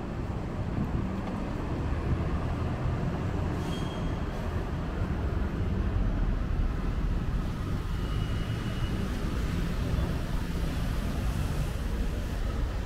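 Street traffic: a steady low engine rumble from a heavy vehicle running close by, with two faint brief high tones about four seconds in and again near eight seconds.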